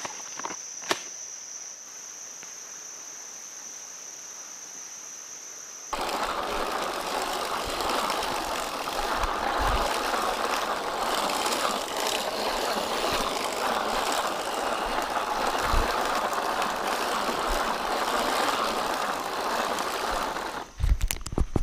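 Crickets chirping in a steady high trill. About six seconds in, a hand-cranked broadcast seed spreader starts a continuous mechanical whirring as seed is spread, broken by a few clicks near the end.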